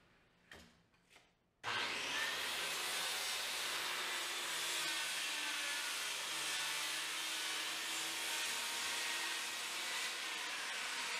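A power tool running steadily with a loud, even hiss, starting suddenly about a second and a half in after a couple of faint clicks.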